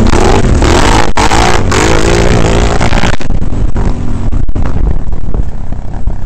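Quad bike (ATV) engine heard from on board, loud and revving, its pitch rising and falling through the first half as it is ridden over a rough dirt track.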